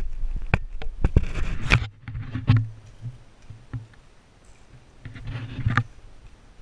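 Handling noise from a hand-held camera carried on a walk: sharp knocks and rubbing in the first two seconds, then quieter, with another burst of rubbing a little before the end.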